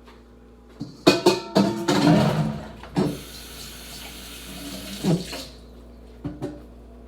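Kitchen tap running into a sink for about four seconds, with some clattering, then turned off; a couple of light knocks follow.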